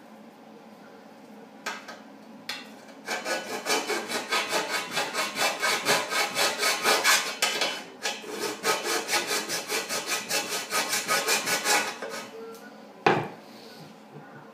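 Hand file rasping back and forth on the metal of a snowmobile exhaust pipe, about three strokes a second, in two runs with a short break between. A single sharp knock comes near the end.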